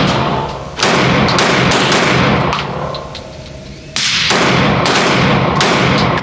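Glock 32 pistol, chambered in .357 SIG, firing a rapid string of shots, each followed by an echoing tail.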